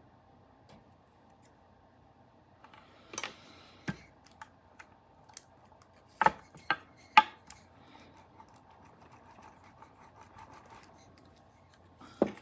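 Thin plastic stencil sheets handled and set down on a polymer clay slab: a scatter of sharp clicks and taps, the loudest cluster about six to seven seconds in and another near the end, with light rustling and scraping between.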